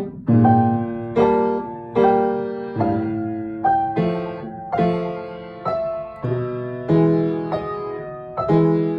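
Piano duet, four hands on one piano, playing a steady, even series of chords, about one every three-quarters of a second. Each chord is struck and left to ring out before the next.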